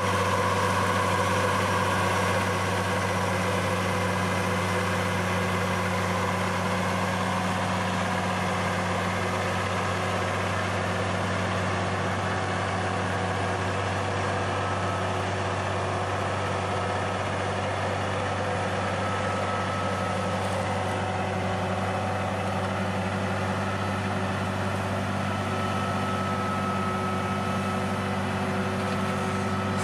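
Tractor's diesel engine running at a steady speed, a constant low drone that holds without revving up or down.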